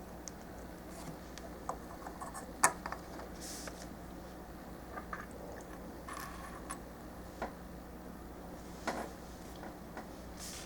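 Snap-fit plastic model-kit parts being handled and pressed together: scattered light clicks and taps, the sharpest about two and a half seconds in, with a few brief rustles between.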